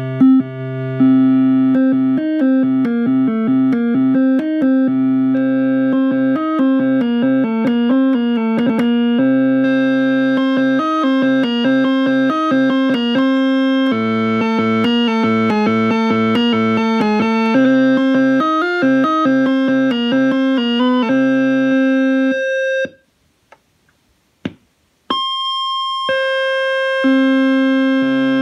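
Formanta Faemi Soviet mini synthesizer playing a quick run of notes over a held lower note. About 23 seconds in the sound cuts out for two seconds, with a couple of clicks. It then comes back as sustained notes in a brighter tone.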